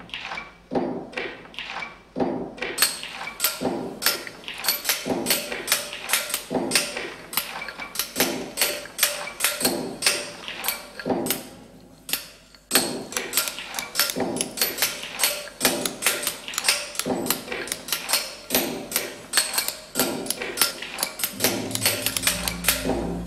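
Rapid, uneven sharp tapping and hammering strikes, several a second, with a ringing edge. They pause briefly about twelve seconds in, then resume more densely.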